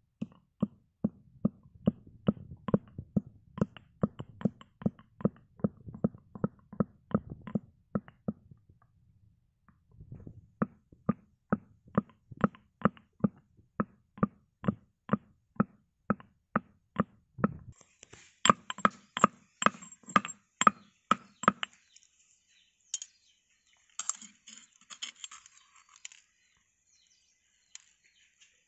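Small black stone pestle pounding green cardamom pods in a stone mortar. The strikes come steadily at about three a second, pause about eight seconds in, resume, turn sharper and brighter around eighteen seconds, and end in a few lighter, scattered taps.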